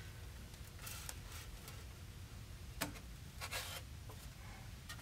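Polystyrene foam sheet being handled on a hot-wire cutter's plywood table: a few faint rustles and scrapes and one sharp tap just before three seconds in, over a low steady hum.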